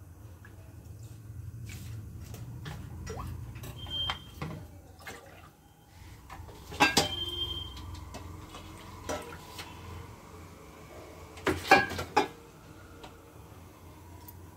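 Kitchen clatter of dishes and metal utensils being handled: scattered clinks and knocks, with two louder clatters about halfway and near the end, and a brief metallic ring, over a low steady hum.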